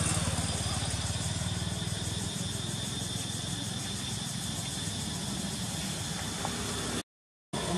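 Motorcycle engine passing close by, loudest at first and fading over the first couple of seconds, leaving a steady outdoor hiss; the sound cuts off suddenly near the end.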